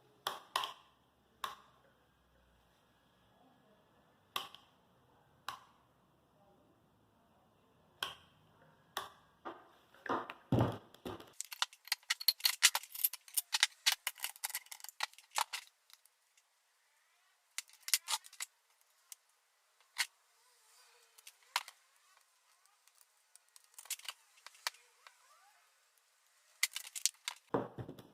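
Handling noises: scattered sharp clicks and knocks, with a few seconds of dense clattering and rattling in the middle. No motor is running.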